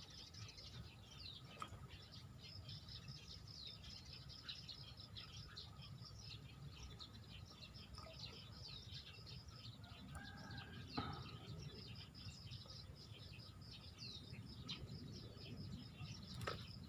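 Faint wetland ambience: small birds chirping in quick, high, overlapping calls throughout, over a low rumble.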